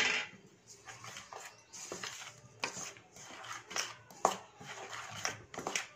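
Dry chili powder, salt and ground spices being stirred in a stainless steel bowl: irregular scrapes, rustles and light taps against the metal, with a sharper scrape at the start.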